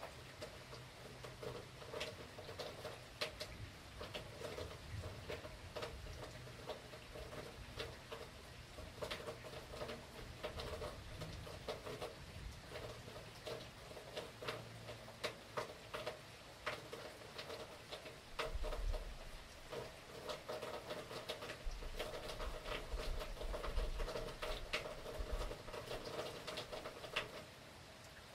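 Hurricane rain falling, heavy drops tapping and pattering irregularly on a surface, with low rumbles about two-thirds of the way through. The rain cuts out shortly before the end.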